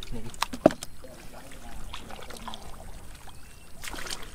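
Splashing and sloshing in shallow muddy water as a person wades and works in the mud, with one sharp slap just under a second in and a longer burst of splashing near the end.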